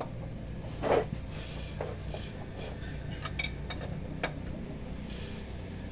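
Mitsubishi PS100 engine running at a steady low idle, with sharp metallic clinks of tools or parts on the engine, the loudest about a second in and lighter ones scattered after it.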